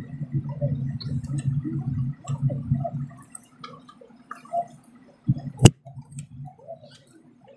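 Gulping and swallowing of mango drink from a small plastic bottle for about three seconds, then small clicks and crackles of plastic bottles and screw caps being handled and twisted open, with one sharp click a little before the end.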